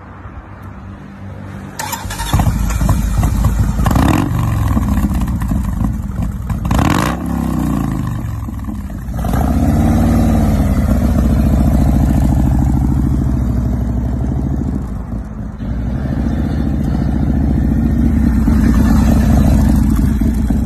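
Customized 1998 Harley-Davidson Softail Heritage V-twin starting about two seconds in, blipped hard twice and revved once more, then running steadily and growing louder near the end as the bike rides off.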